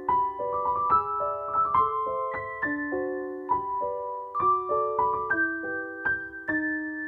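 Background piano music: a gentle melody of single struck notes that ring and fade, ending on a held chord near the end.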